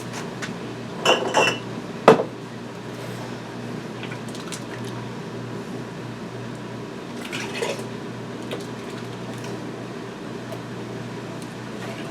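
Utensils clinking against glass canning jars and the pot as salsa is scooped into pint jars: a few clinks about a second in, a sharper knock near two seconds, and another clatter near seven and a half seconds, over a steady low hum.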